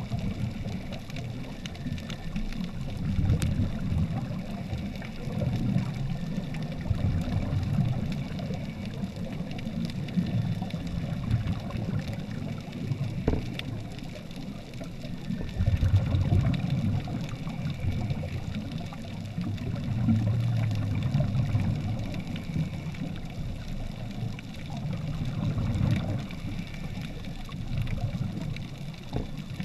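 Muffled underwater rumble picked up through a camera housing in shallow water: scuba regulator exhaust bubbles and water surge, swelling and easing every few seconds.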